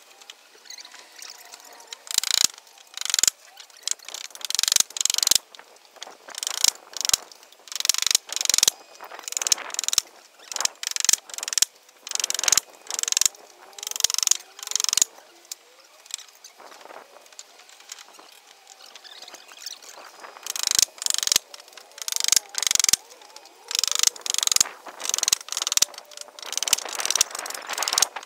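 Hand tools working on old wooden planks: a quick, irregular run of rasping strokes and sharp knocks, with a few short squeaks. It pauses for a few seconds a little past halfway, then starts again.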